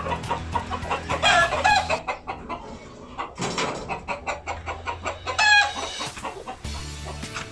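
Backyard chickens clucking and calling, with two louder calls that stand out, one about a second in and another about five and a half seconds in.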